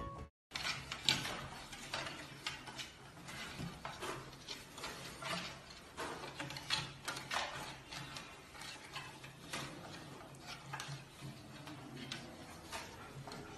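Faint, irregular clicking and knocking from the wooden rails of a crib as a giant panda cub climbs on them, over a low steady hum.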